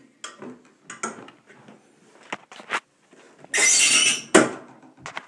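Close handling noise: plastic squeaking, rubbing and clicking, with a louder scraping rub about three and a half seconds in that ends in a sharp click.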